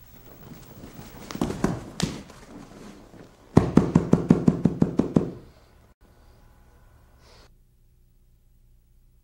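Two grapplers scuffling on a training mat, then a fast run of about a dozen sharp slapping blows, some seven a second, as strikes are shown from on top.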